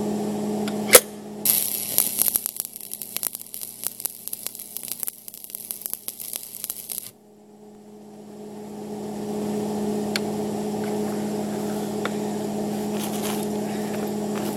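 Stick-welding arc with a 7018 electrode: struck with a sharp crack about a second in, then crackling steadily for about five seconds before it breaks off suddenly. A steady hum runs underneath before and after the arc.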